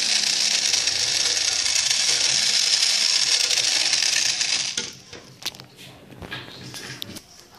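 Battery-powered toy Thomas the Tank Engine's motor running with a steady whir, its wheels spinning freely off the track; it cuts off about five seconds in, followed by a few light clicks and knocks as the toy engine is handled.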